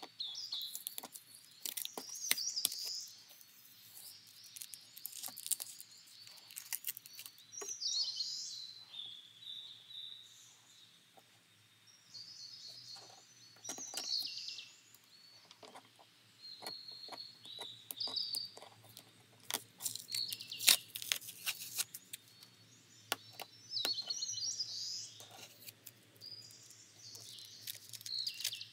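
Small birds chirping and singing in short repeated phrases. Over them come scattered sharp clicks and scratches from a craft knife cutting paper on a cutting mat and from handling clear plastic film.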